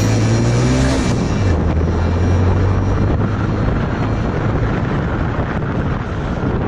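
Motorcycle engine pulling away and accelerating, its pitch rising in the first second, then settling into a steady run under wind and road rush that builds as speed climbs.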